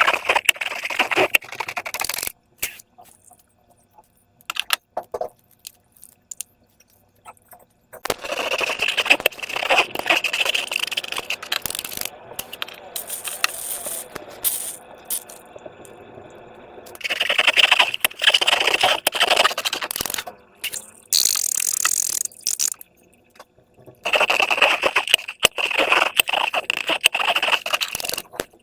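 Slime being worked by hand, with wet crackling, squelching and scraping. It comes in spells of a few seconds, about five in all, with short pauses between them.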